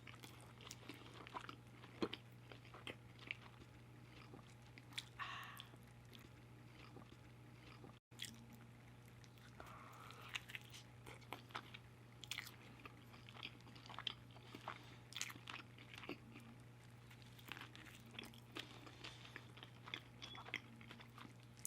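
Close-miked chewing: a mouth eating, with many small wet clicks and smacks, over a steady low hum.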